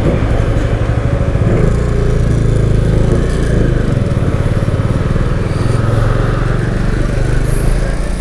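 Motorcycle engine running at low revs as the bike creeps over a rough, muddy road, the revs easing and picking up a little along the way.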